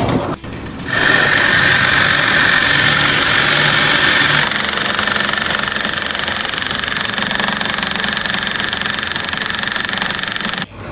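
Machinery running steadily, a dense mechanical noise with a high steady whine; its tone shifts slightly about four and a half seconds in.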